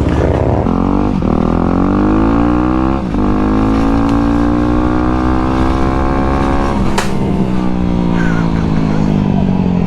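A dirt bike's engine accelerating, pitch climbing with two quick gear-change breaks, holding high, then slowly falling as it eases off. There is one sharp knock about seven seconds in.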